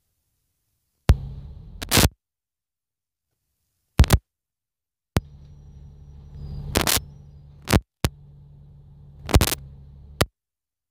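Silence broken by four short stretches of a low, steady drone, typical of a double-decker bus's cabin on the move. Each stretch cuts in and out abruptly with loud sharp clicks or knocks.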